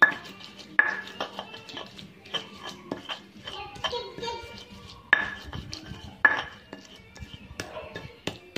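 A stone pestle grinds and pounds chilies and shallots in a stone mortar (Indonesian ulekan and cobek): irregular scraping strokes and knocks of stone on stone. A few harder knocks ring sharply, one right at the start, one about a second in, and two more around five and six seconds in.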